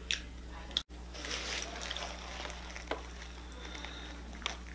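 Close-miked eating sounds: a few sharp wet mouth clicks, and bites and chewing of a grilled tortilla wrap with crunchy corn shells inside, with the foil and paper wrapper crinkling. A low steady hum lies under it.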